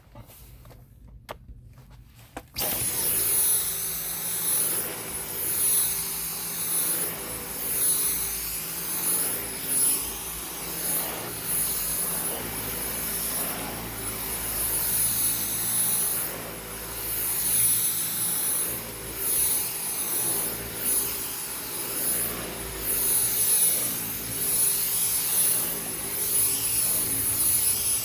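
Dyson V10 cordless stick vacuum with its direct-drive cleaner head, switched on suddenly about two and a half seconds in and then running on thick-pile carpet with a steady high whine. Its sound swells and eases every second or two as it is pushed and pulled across the carpet.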